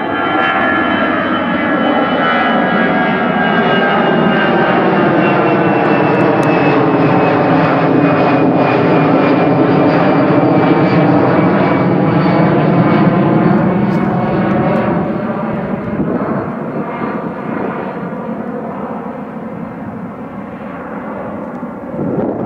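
Airbus A320-214's CFM56 jet engines at takeoff-climb power as the airliner passes overhead and climbs away: a steady jet roar with a high whine that slowly falls in pitch. It is loudest about halfway through, then fades.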